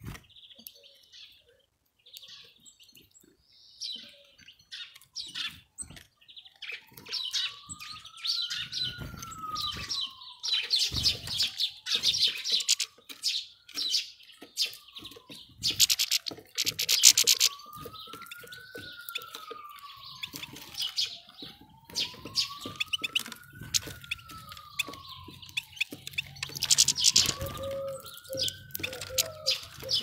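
Small wild birds chirping and twittering busily at a feeder, in short rapid calls with scattered clicks. Beneath them a fainter tone slowly rises and falls in pitch, about once every five seconds, from several seconds in.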